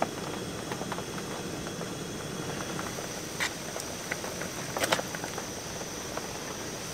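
Stew simmering in a camping pot over a steady background hiss. A block of tofu is tipped from a plastic tub into the pot, with a light click about three and a half seconds in and a few sharper clicks and splashes about five seconds in.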